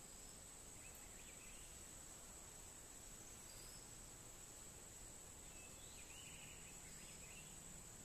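Quiet outdoor ambience: a steady high-pitched insect drone runs throughout, with a few faint bird chirps about a second in and again near the end.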